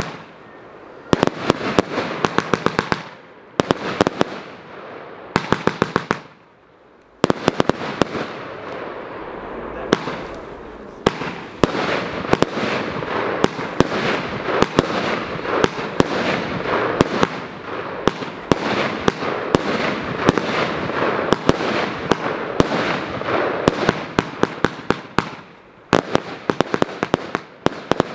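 Consumer firework battery ("Copenhagen Gold" cake) firing: rapid runs of sharp shots as tubes launch and burst overhead. Two short lulls about 3 and 6 seconds in, then the firing is near-continuous.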